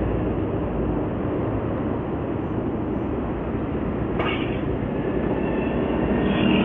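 Steady wind and road rumble of a moving motorcycle with its engine running, as heard from a bike-mounted camera, with a brief hiss about four seconds in.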